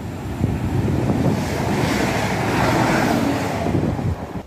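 A passenger train running past close by: a loud rush of wheel and air noise that swells and then eases, with wind buffeting the microphone.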